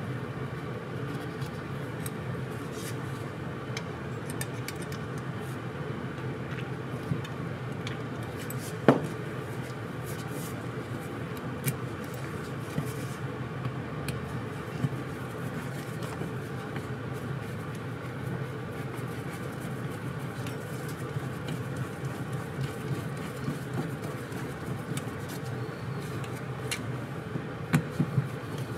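Light clicks and taps of a screwdriver and small metal parts being worked on a scooter carburetor, with one sharper click about nine seconds in, over a steady low hum.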